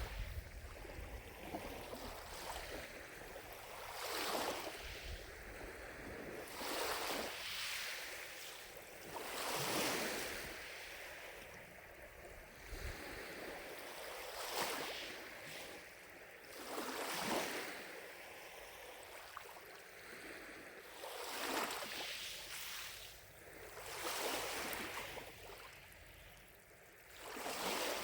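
Small lake waves lapping against the shore, each wash rising and falling away, one every few seconds.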